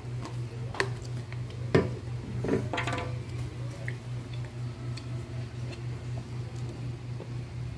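A few clicks, then a louder knock and clatter about two to three seconds in, as a child eats and picks up a plastic drink bottle. Under them runs a steady low hum that pulses about four times a second.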